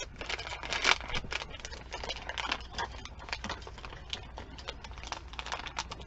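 Small plastic blind-bag packet crinkling and crackling as it is pulled at and torn open by hand, a dense run of irregular crackles.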